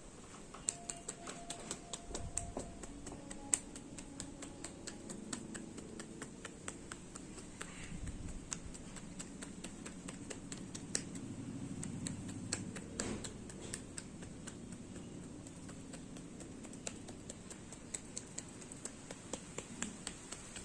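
Hair cracking: many sharp, irregular clicks and crackles, several a second, from strands of hair being tugged and twisted against the scalp.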